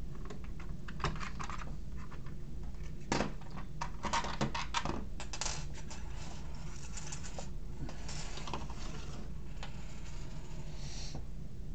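Small metal clicks and clatter of an Allen key and small screws being handled and set down, with one sharp click about three seconds in and a quick run of clicks a second later, then softer scraping and rustling.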